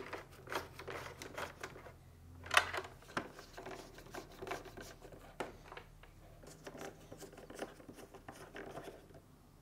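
Faint handling noises: scattered light clicks, taps and rustles of hands working a wire harness and plastic parts in a refrigerator's dispenser housing, with a sharper click about two and a half seconds in.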